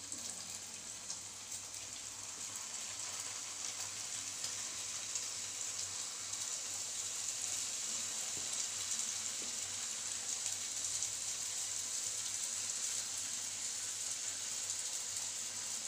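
Square pieces of maida dough deep-frying in hot coconut oil: a steady sizzle with fine crackling. It grows a little louder over the first few seconds as more pieces go into the oil.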